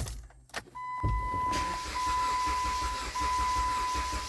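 A steady, high electronic warning tone from the car, broken twice by short gaps, sounding over a low rumbling noise.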